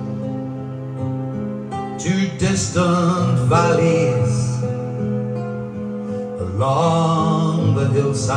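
A man sings into a microphone over a backing track with guitar, played through a PA speaker. His sung phrases come about two and a half seconds in and again near the end, over steady bass notes.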